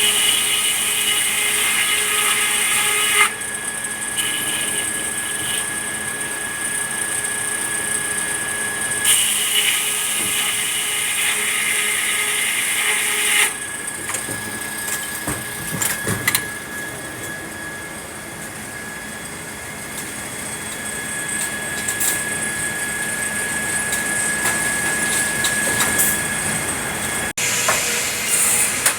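Sawmill machinery running with a steady high whine, and a saw cutting red pine in louder stretches at the start and again from about nine to thirteen seconds in. Scattered knocks come through, and the sound drops out briefly near the end.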